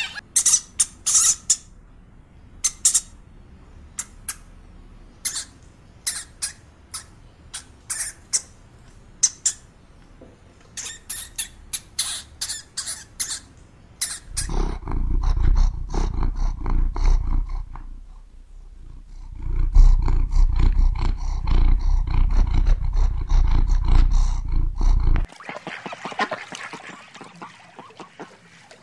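Animal sounds: many short, sharp calls or clicks for about the first half, then a loud, low rumbling sound that breaks off briefly and cuts off suddenly, followed by fainter, higher calls near the end.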